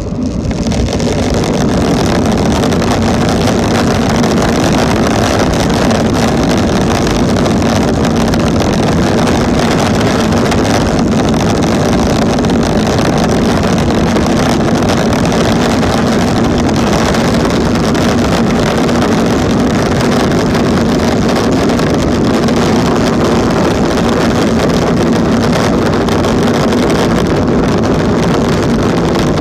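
Boeing 777 jet engines at takeoff power, heard from inside the cabin: a roar that swells within the first second and then holds steady and loud, with a constant hum under the rush of noise, as the airliner makes its takeoff run and climbs.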